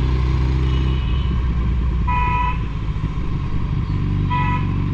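Vehicle horn honking twice, two short beeps about two seconds apart, over the low running of a Suzuki Hayabusa's inline-four engine and street traffic.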